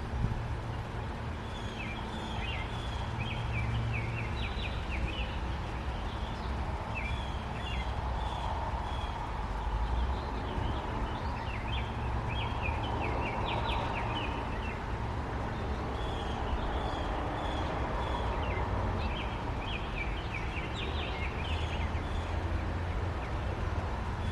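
Robin nestlings chirping in clusters of short, high notes that come and go every few seconds, over a steady low rumble.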